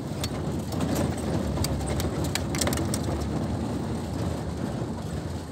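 A knife hacking at a frozen plastic bottle of ice over a bucket of ice and beer cans: scattered sharp clicks and cracks over a steady low rumble.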